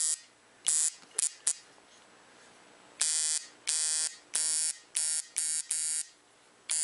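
A coil tattoo machine buzzes in short bursts, switched on and off by pressing a homemade footswitch. There are three brief blips about a second in, then six quick bursts of under half a second each from about three seconds on.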